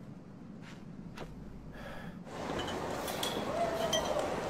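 Faint background noise, then about halfway through a louder supermarket ambience with a few light clinks.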